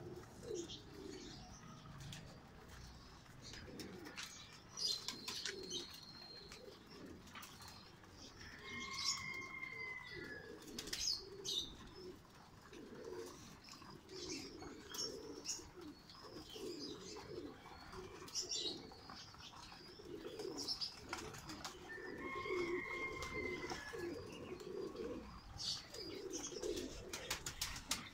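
Many domestic pigeons cooing over and over, with occasional wing flapping. A brief higher-pitched call sounds twice.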